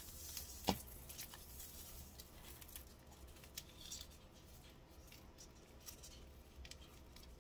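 Faint handling of a roll of washi tape being unrolled and laid out on a tabletop: soft rustles and a few light clicks, the sharpest two in the first second.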